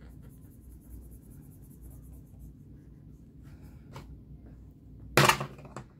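Marker scratching on paper as a letter is coloured in on a game sheet, then a small click about four seconds in and a loud short clatter near the end as an alphabet die is dropped through a dice tower.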